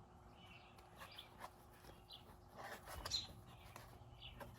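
Faint clicks and rattles of a plastic cover being pried and worked at on a switch-panel relay module, with a sharper click at the very end. Faint short bird chirps sound about once a second behind it.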